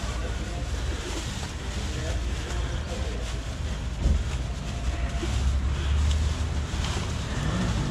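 Wind buffeting the microphone, a low rumbling noise that swells in the second half, with a single knock about four seconds in.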